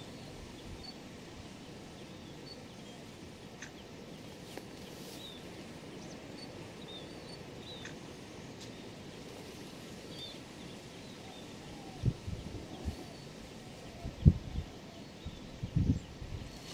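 Open-air wetland ambience with birds chirping now and then. In the last few seconds, several dull low thumps.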